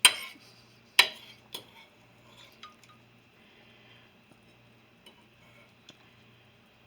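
A fork clinking against a plate: two sharp clinks, one at the start and one about a second in, then a few faint taps.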